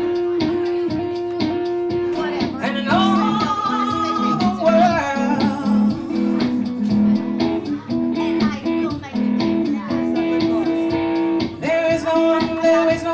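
Live song on a hollow-body guitar, picking a repeating pattern of notes, joined about two and a half seconds in by a voice singing long, wavering notes.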